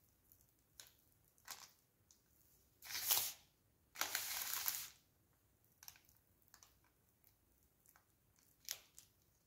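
A small knife spreading frosting over a loaf cake in a paper liner. Two short scraping, crinkling rustles come about three and four seconds in, with a few light clicks and taps between.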